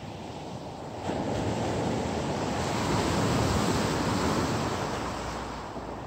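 Sea surf breaking on a pebble beach: a wave comes in about a second in, is loudest midway, then washes back and fades.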